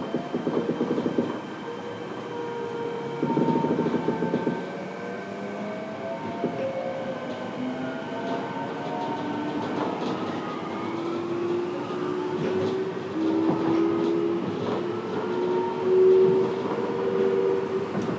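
Fukuoka City Subway 1000N series train running, heard from inside the passenger car. Early on there are two short bursts of wheel clatter over rail joints, and the traction motor whine rises steadily in pitch through the second half as the train gathers speed.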